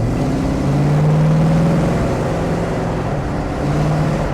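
1969 Shelby GT500's 428 Cobra Jet V8 pulling hard under acceleration, heard from inside the cabin: a deep, steady engine note that swells early on and drops out briefly about three seconds in before picking up again.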